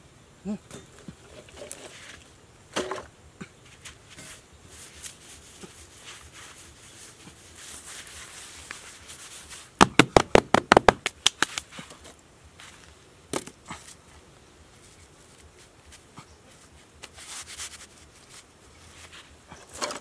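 A quick run of about a dozen sharp hand slaps, some eight a second for about a second and a half, in the middle, as hands pat and spread loose sand flat. Around it are quieter scattered scrapes and taps of work in dry sand.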